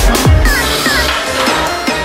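Electronic background music, with a deep bass note sliding downward just after the start.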